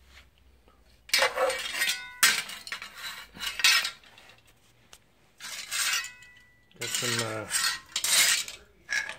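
Old metal hand tools, sickles and hooked blades, being handled and shifted on a tile floor, clanking and scraping against each other and the tile in a series of irregular bursts, some with a short metallic ring.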